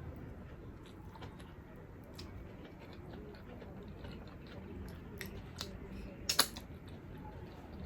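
Close-up sounds of a person chewing and eating a meal of rice, braised pork hock and okra, with small wet clicks throughout and one sharp double click about six seconds in.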